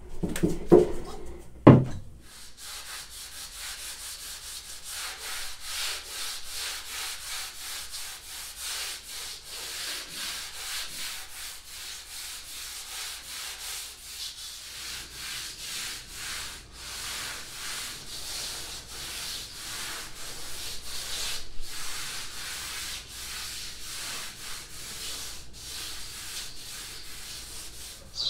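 Two knocks in the first two seconds as the plywood hull is set down, then steady back-and-forth hand sanding of the primed plywood hull, sandpaper scratching over the surface stroke after stroke.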